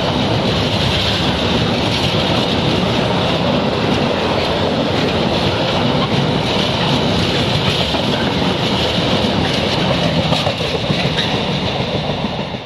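Container freight train passing close at speed, a steady heavy rumble of the wagons with their wheels clattering on the rails. It falls away near the end as the last wagons go by.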